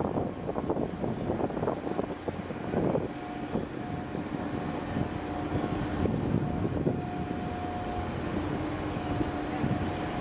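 Large container ship passing close by: a low rumble of its machinery, joined about three seconds in by a steady hum, with wind buffeting the microphone.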